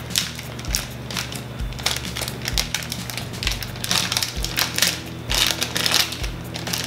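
Hard-drive packaging crinkling and rustling in irregular bursts as it is handled and opened. A soft, steady low beat plays underneath.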